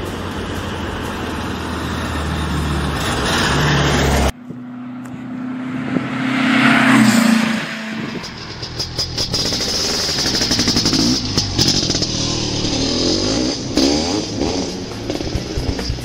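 VW Super Beetle's engine running as the car drives, growing louder, then cut off suddenly about four seconds in. A swelling whoosh follows, then outro music.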